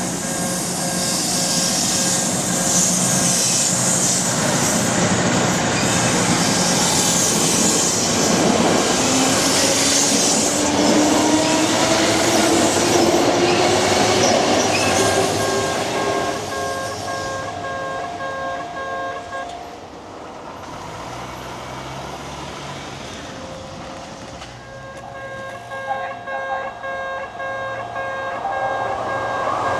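Japanese level crossing warning bell ringing in a steady repeating clang while an electric train runs through, its motor whine rising in pitch as it pulls away. The bell stops about twenty seconds in, then starts ringing again about five seconds later as the next train approaches.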